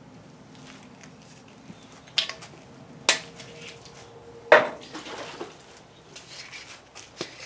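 Metallic clinks and knocks from a metal can of primer hardener being pried open and handled: three sharp knocks about two, three and four and a half seconds in, with a brief ring after the second, then lighter clicks near the end.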